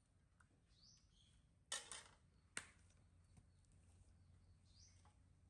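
Near silence broken by a few faint clicks and knocks of kitchen utensils at a wok, the clearest a little under two seconds in and a sharp one just after, with a couple of short, high, rising chirps.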